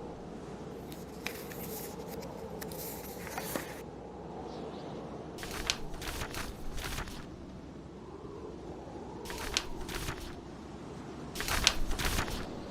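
Mixed ambience of steady, low blizzard wind with a wood fire, and a short burst of crackling and paper rustling every few seconds, typical of a fire popping and book pages being turned.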